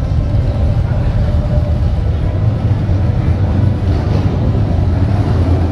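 Steady, loud low engine rumble on a ferry's enclosed vehicle deck, with no distinct events.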